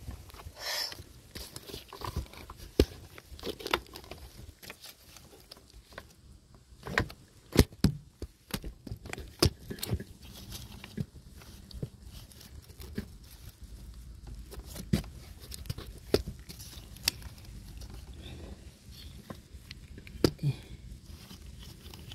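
Irregular, scattered sharp clicks and light knocks of hand work on an engine's fuel injector wiring connector, with plastic and small parts being handled.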